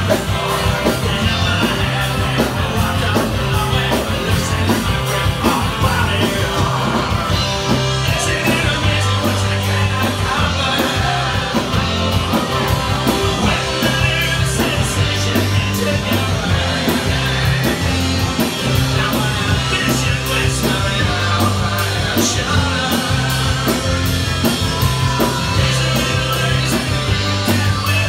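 Rock music with guitar, drums and singing.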